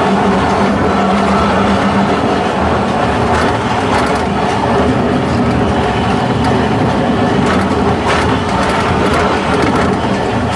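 Horse-drawn tram rolling along street rails: a steady rumble of the wheels on the track, with a run of clicks and rattles through the middle.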